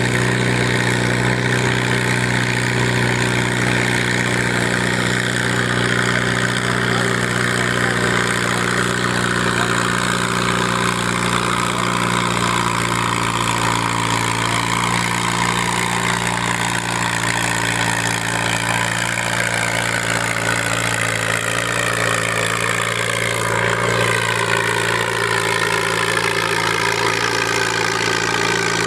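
Diesel tractor engines running steadily, with no let-up. In the last few seconds a cab tractor drives up close, and its engine pitch slides as it passes.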